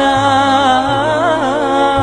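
Opening nasheed of the programme: a solo voice holding a long, wavering melismatic line without words over low held drone notes.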